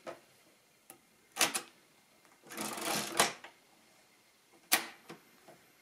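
Mercedes-Euklid model 29 mechanical calculator being cleared by its clearing levers. There is a sharp clack, then a short rattle that ends in a snap as the register wheels spin back to zero, and a last sharp click near the end.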